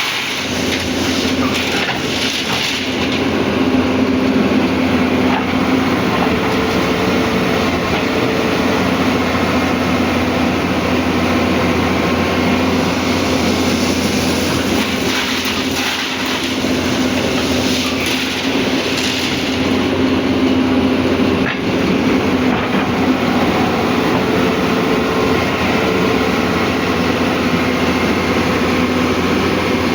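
Hyundai excavator's diesel engine running steadily, with one sharp knock about three quarters of the way through.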